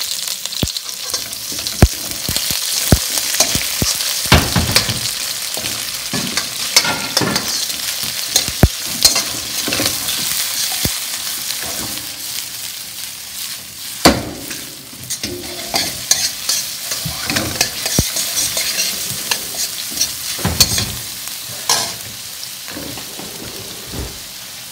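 Sliced onion and garlic sizzling in hot oil in a stainless steel wok, with a metal wok ladle scraping and clinking against the pan as the onion is stirred and tossed. The sizzle gets quieter near the end.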